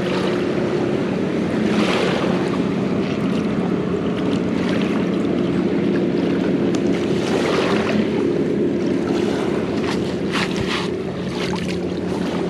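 Steady rushing of wind and water, with a steady low hum beneath it.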